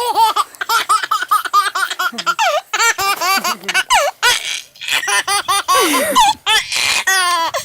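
A baby laughing hard in a long run of quick, high-pitched bursts, with a few brief pauses for breath.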